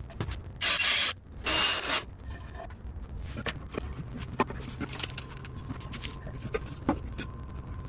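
A wooden board scraping twice against the underside of the van as it is fitted between a bottle jack and the differential, followed by scattered light taps and clicks as it is set in place.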